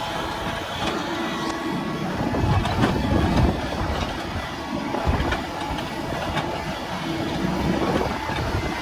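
Doosan excavator's diesel engine running under load as it works, with a whine that comes and goes and scattered knocks and clicks.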